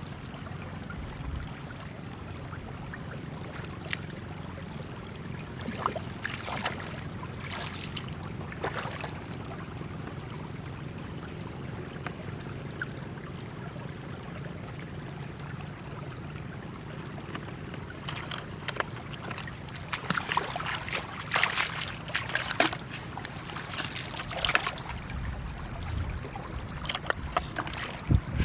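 Water trickling and splashing over a steady low hum, the splashing getting busier in the last ten seconds or so.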